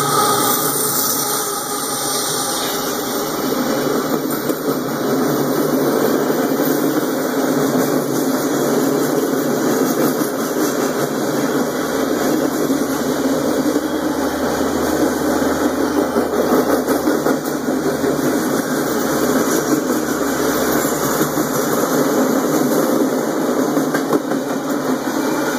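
Freight train passing at close range. A diesel locomotive goes by first, then freight cars roll past with a steady, loud rolling noise of wheels on rail.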